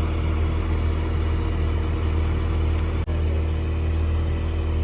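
Steady low engine drone of a running vehicle, with a brief dropout about three seconds in.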